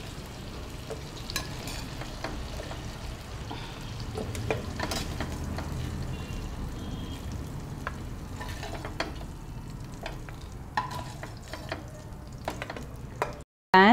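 Chicken pieces sizzling as they fry in ghee, with a spatula scraping and clicking against the pan every second or two to loosen the browned pieces from the bottom.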